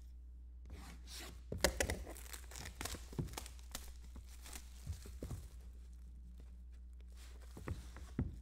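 Clear plastic shrink wrap being torn and peeled off a sealed trading-card box, a run of crinkling crackles. Near the end come a couple of light knocks as the box is handled.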